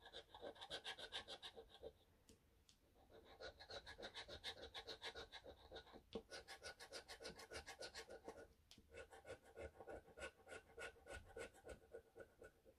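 Faint quick scraping of a tool rubbing the scratch-off coating from a Moje 77 lottery scratch card, about five strokes a second. The strokes come in four runs broken by short pauses.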